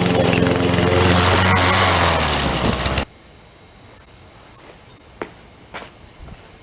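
Lawn mower engine running, its pitch falling as it winds down about two seconds in, then cutting out abruptly. A faint steady high buzz and a few light clicks follow.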